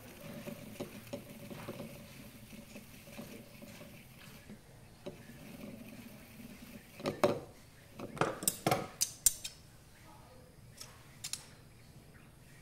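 Hands handling a baitcasting reel and a pair of metal scissors: soft fiddling noises, then a run of sharp metallic clicks and clinks about halfway through.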